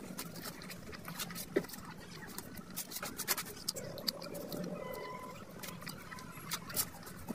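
Eating sounds from hand-eating rice with mutton curry: fingers squishing and scooping the oily rice, then wet chewing and lip smacks, made of many small sharp clicks.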